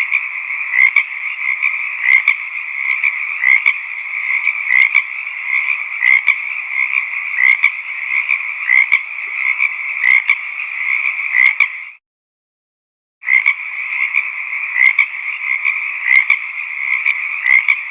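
A dense chorus of frogs croaking, with louder single calls standing out above it every second or so. The sound cuts out completely for about a second about two-thirds of the way through, then resumes.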